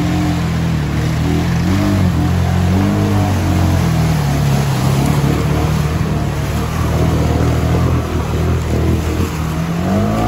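Honda Rubicon 520 ATV engine revving up and down as it churns through deep muddy creek water, with water splashing. The revs climb again near the end.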